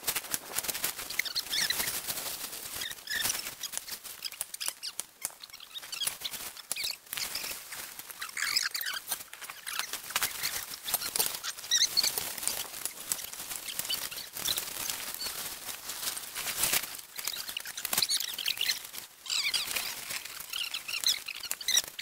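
Heavy canvas and plastic tarpaulin rustling and flapping in irregular bursts, with scattered knocks, as a large army tent is pulled over its frame and raised. High chirps come through now and then, most around the middle and near the end.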